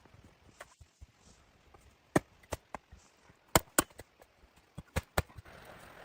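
Wood being chopped with a blade: sharp knocks in small groups of two or three, then a brief rustling hiss near the end.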